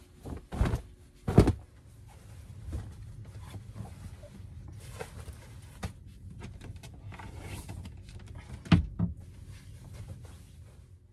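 A few sharp knocks and bumps of things being handled: two close together just after the start and another loud one near the end. Between them run a low rumble and some rustling.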